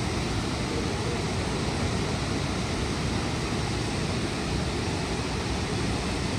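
Steady, even rushing of a large multi-tiered waterfall, with no change in level.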